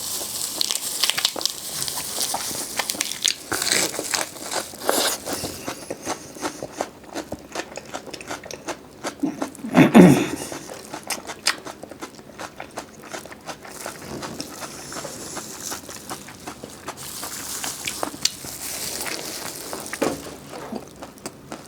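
Close-miked eating: crisp bites, crunching and wet chewing, with many short clicks and crackles. About halfway through there is one louder, short hum-like mouth sound.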